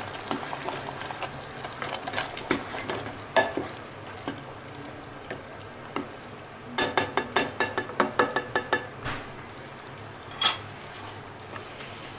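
Chili chicken in thick sauce simmering in a nonstick pan on low flame, stirred with a spatula that clicks and scrapes against the pan. About seven seconds in, a quick run of spatula knocks lasts about two seconds.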